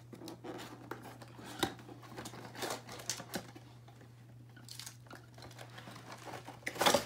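Cardboard packaging rustling and scraping, with light clicks and clinks, as a metal ceiling fan brace is pulled out of its box; a louder rattle near the end. A steady low hum runs underneath.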